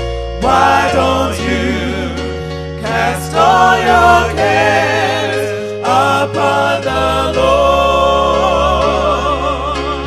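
Gospel song: voices hold long notes with vibrato, without clear words, over steady bass notes that change every second or two.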